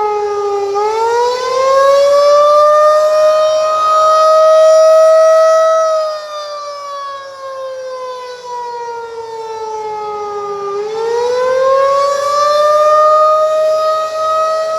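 Federal Signal 2001-DC outdoor warning siren sounding a wail, its tone rising slowly in pitch, falling back down and rising again in a cycle of about ten seconds. The sound swells and fades in loudness as it goes.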